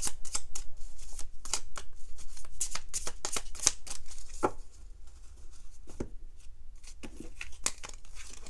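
Deck of tarot cards being shuffled by hand: a quick run of soft card slaps and flicks, busy and louder for the first half, then sparser and quieter.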